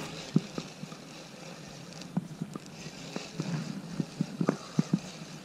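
Faint, irregular light knocks and clicks, about a dozen over a few seconds, from a spinning rod and reel being handled aboard a plastic fishing kayak while a fish is reeled in.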